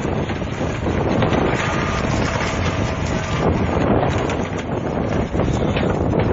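Wind buffeting the microphone, over the low, steady running of a heavy machine's engine.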